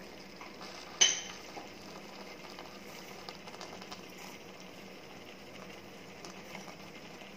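Butter bean, potato and coconut masala sizzling faintly in a kadai on the stove, a low hiss with fine crackling. A single sharp clink about a second in.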